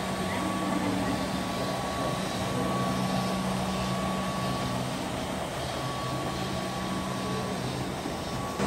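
Autonomous floor-scrubbing robot running as it drives across a tiled floor, a steady low motor hum with a faint high whine over the noise of its scrubbing.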